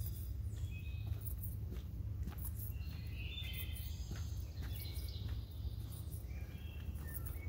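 Songbirds giving short chirps and whistles and insects calling in quick high pulses, with a hiker's footsteps on a dirt forest trail and a steady low rumble of wind and handling noise on the microphone.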